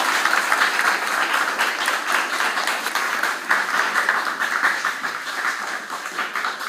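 An audience clapping and applauding, dense and steady, easing off a little toward the end.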